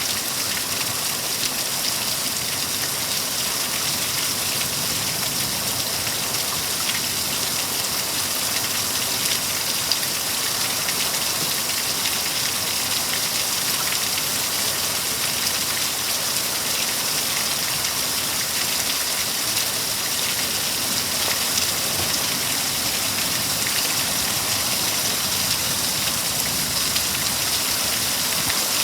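Steady rain from a severe thunderstorm: a dense, even hiss of falling drops with scattered faint ticks of drops striking surfaces.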